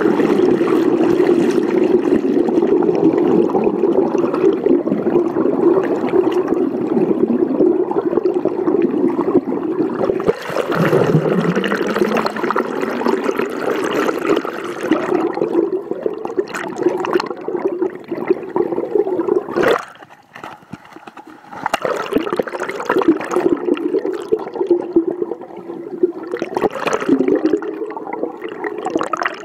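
Underwater water noise picked up by a submerged camera: a continuous rushing, gurgling wash over a steady low hum, with one sharp knock about two-thirds of the way through.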